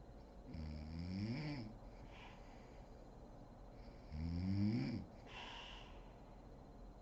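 A woman snoring in her sleep: two snores about three and a half seconds apart, each rising in pitch, with a breathy exhale after each.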